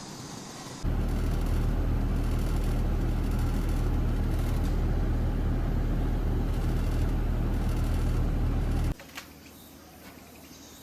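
Air conditioner outdoor unit running with a loud, steady low hum, starting abruptly about a second in and cutting off suddenly near the end. This is the abnormal, excessive noise the unit is being repaired for.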